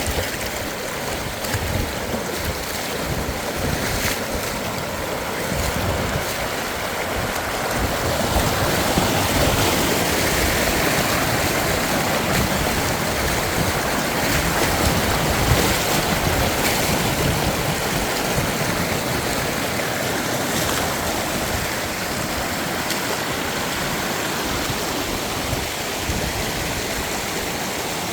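Steady rushing of flowing water, like a stream, holding an even level with a slight swell about eight seconds in.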